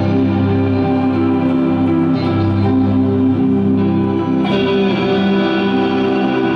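Live band music led by an electric guitar playing sustained chords, with a new chord struck about four and a half seconds in.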